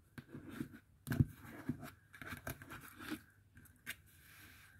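A deck of cards being spread out by hand over a cardboard board: dry sliding rustles and small slaps of card on card, with a sharper tap about a second in.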